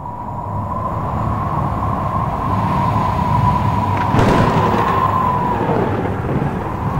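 Dramatic sound design for a title sequence: a low rumble under a steady high tone, with a sudden sharp hit about four seconds in.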